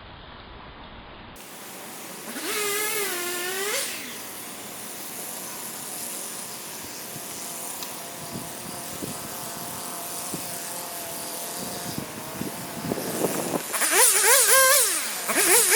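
Gas chainsaw revving, its pitch swinging up and down as it is throttled and worked through wood: a short burst a few seconds in, then steadier running, then loud revving near the end.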